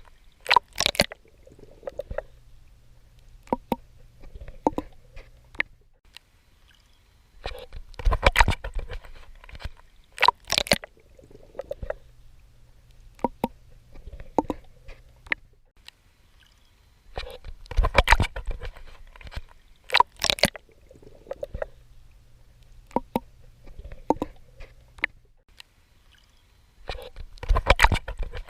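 A swimmer's strokes splashing at the water's surface, coming in bursts every nine to ten seconds, with quieter sloshing, small drips and a faint low rumble between them.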